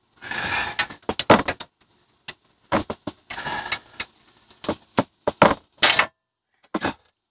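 A ratchet strap being worked by hand: irregular sharp clicks from the ratchet buckle, with a couple of short rustles.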